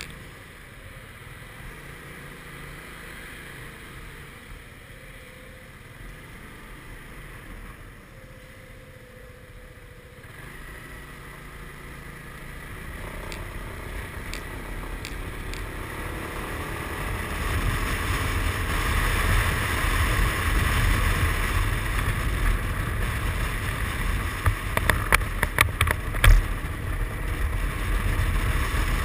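Suzuki Burgman 400 scooter under way: its single-cylinder engine and rushing air, quiet at first and growing much louder about halfway through as speed picks up, with wind buffeting the microphone. A few sharp knocks near the end.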